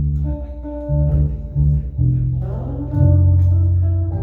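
Guitar music with deep bass notes, each held about half a second to a second, changing pitch every so often.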